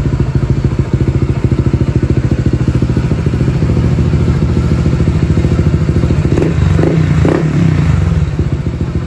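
Honda Click 160 scooter's single-cylinder four-stroke engine idling through a JVT v3 aftermarket exhaust with its adjustable opening set fully open, pulsing steadily. About six seconds in, the throttle is blipped a few times and the engine drops back to idle.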